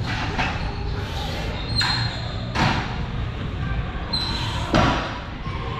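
Weight-room background noise with three sharp clanks or knocks of gym weights, about two, two and a half and five seconds in.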